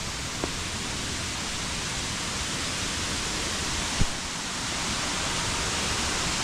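Steady rushing of falling water, with a short thump about four seconds in.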